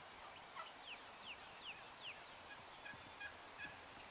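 Wild turkeys calling: a run of about five short notes, each falling in pitch, then several shorter, lower notes at two or three a second.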